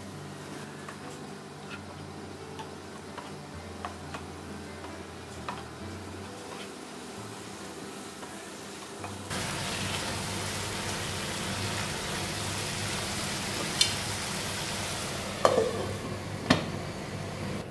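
Oyster mushrooms and vegetables being stirred with a wooden spatula in a nonstick frying pan, with faint scraping and tapping. About nine seconds in a loud steady sizzle starts. Near the end a few clinks as a glass lid is set on the pan, one with a short ring.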